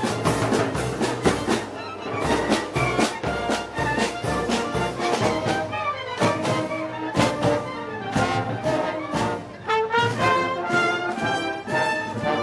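Festival brass band playing, with trumpets and trombones over a steady drumbeat; the drum strokes are most prominent in the first half, and sustained brass notes stand out more in the second.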